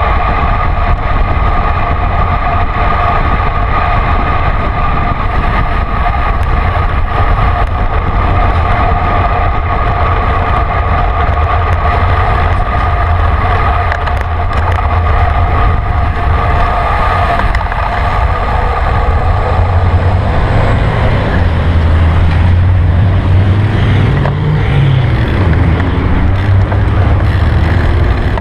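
Wind rushing over a bicycle-mounted camera's microphone, mixed with road and traffic noise, as the bike rides at speed. A steady high hum sits over it and fades about twenty seconds in, when the low rumble grows stronger.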